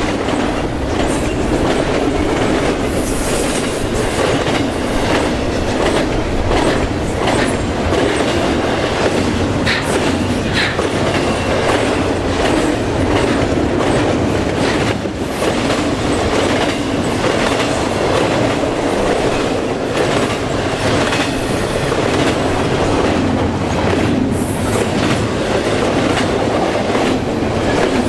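Double-stack intermodal container train passing at speed: a loud, steady rumble of the well cars' steel wheels on the rails, with a running clickety-clack of clicks over the rail joints.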